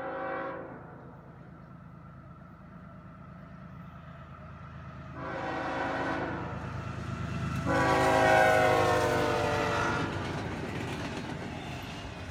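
A CSX diesel freight locomotive's air horn sounds as the train approaches and passes: one blast cuts off about half a second in, another starts about five seconds in, and the longest and loudest runs from about eight to ten seconds in. Under the horn, the low rumble of the locomotive and the rolling double-stack container cars builds up and stays.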